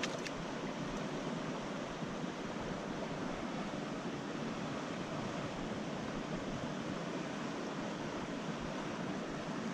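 Creek water running over rocks, a steady rush without a break.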